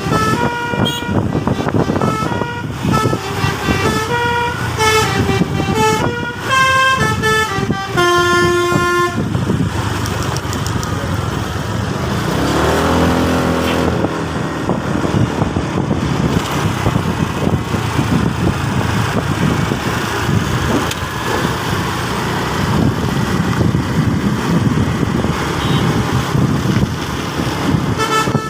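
Telolet bus horn playing a quick melody of stepped notes for about nine seconds, ending on a held note. Then comes a long stretch of steady vehicle noise, with a short tone that slides in pitch about thirteen seconds in.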